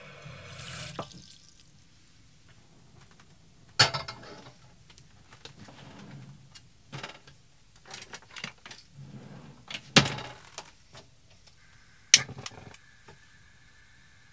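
Pots, pans and utensils being handled at a small stove and sink. There are three sharp clanks, about four, ten and twelve seconds in, with lighter clicks and knocks between them. A steady high tone comes in near the end.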